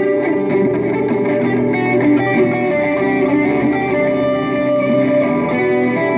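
Electric guitar played through a Mooer GE200 multi-effects processor into an amplifier, picking a melodic line of single notes that ring into one another. It is heard through a phone's microphone in the room.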